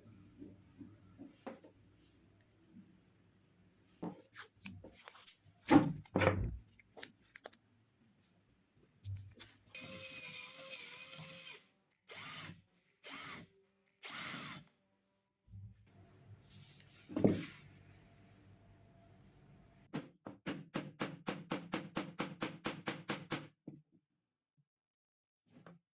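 Woodworking tool sounds: knocks on wood, a few short runs of a small power tool such as a drill, and a quick even run of clicks, about five a second, for a few seconds near the end.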